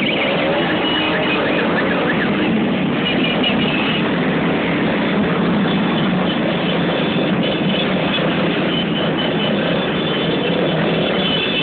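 Many motorcycle engines running together, forming a steady, loud wash of sound, with single engines rising and falling in pitch as they rev.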